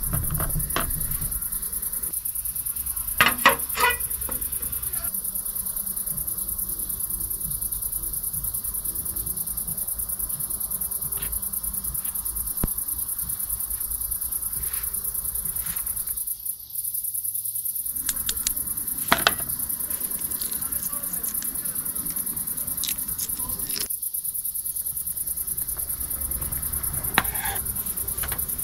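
Crickets chirring in one steady, high-pitched drone, with a few sharp clicks along the way.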